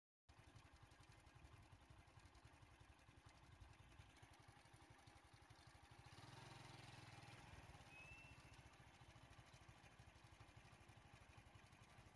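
Faint, low engine noise from road traffic, swelling for a couple of seconds about six seconds in, with one short high whistle about eight seconds in.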